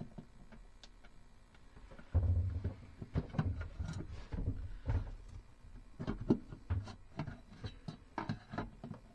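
Handling noise from fitting a new light fixture and its wiring at a boat's nav station: a quiet start, then from about two seconds in an irregular series of small knocks, clicks and thuds.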